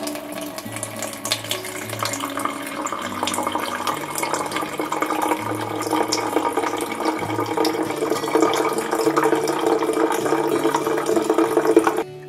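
Water running from a tap in a steady rush that grows louder, then stops abruptly near the end, with soft background music of low held notes underneath.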